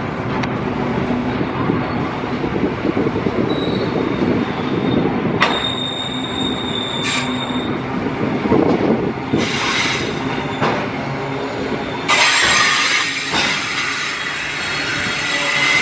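Narrow-gauge intermodal container freight train rolling past close by: a steady rumble of wagon wheels on the rails with a few clicks. High-pitched wheel squeal comes in briefly around six to seven seconds in, and a louder, hissing squeal from about twelve seconds on.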